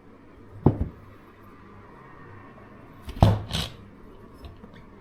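Two handling knocks on a hard surface, about a second in and again about three seconds in; the second is a double knock with a brief scrape.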